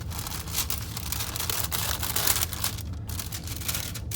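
Black tissue paper rustling and crinkling as it is unfolded from around a pair of headphones in their box, with short breaks near the end.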